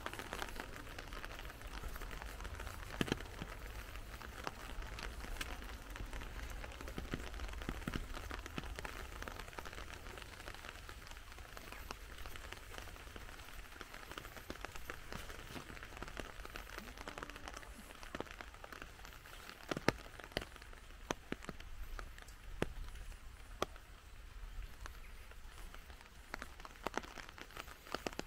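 Light rain pattering and dripping, a steady hiss with many small drops and a few sharper ticks.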